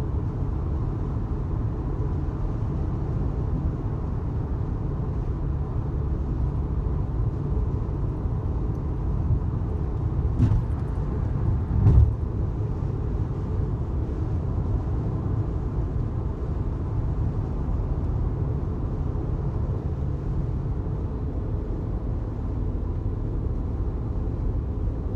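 Steady low road and engine rumble of a car driving, heard from inside the cabin, with two brief knocks about ten and twelve seconds in.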